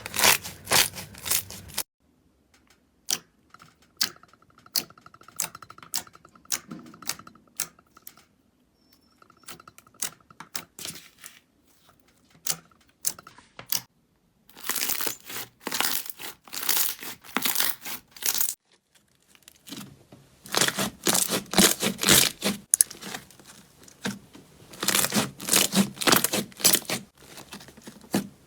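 Slime being squeezed, stretched and poked by hand, giving dense runs of sharp crackling, popping clicks. A sparser stretch of single pops comes between them.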